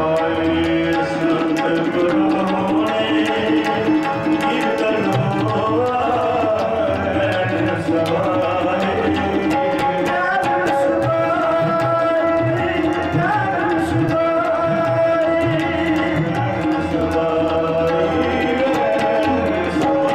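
Sikh kirtan: harmoniums holding a sustained melody over steady tabla drumming, with voices singing at times.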